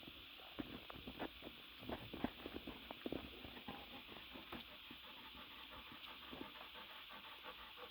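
Faint sounds of newborn Rottweiler puppies nursing: irregular small squeaks and wet suckling clicks.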